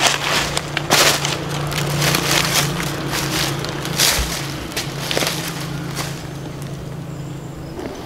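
Footsteps crunching through dry fallen leaves at a walking pace, irregular crackles, over a steady low hum.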